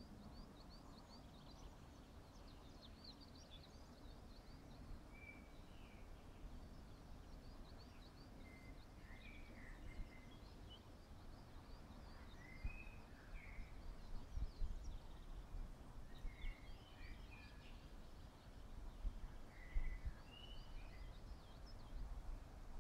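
Faint birdsong from several small birds: quick high chirps throughout, with lower warbled phrases now and then. Under it is a low rumble of wind on the microphone, gustier in the second half.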